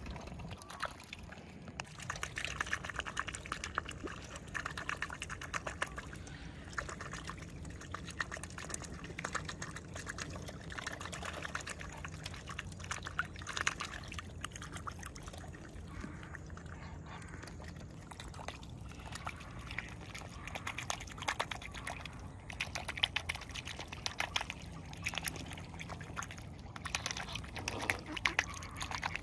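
Mute swans dabbling at the water surface with their bills while feeding, a rapid pattering splash of water that comes in bouts.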